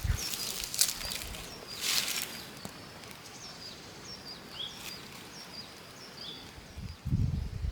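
Rural outdoor ambience: small birds chirping repeatedly in short high calls. There are brief rustling noises about one and two seconds in, and dull thumps near the end.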